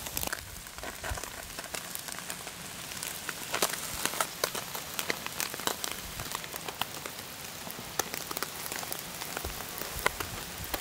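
Catfish pieces on metal skewers sizzling over hot charcoal, a steady hiss with many sharp crackles and pops at irregular intervals.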